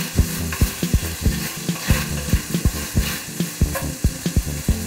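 Pork strips sizzling in hot oil in a wok as they sear, stirred with a wooden spoon that knocks and scrapes against the pan several times a second.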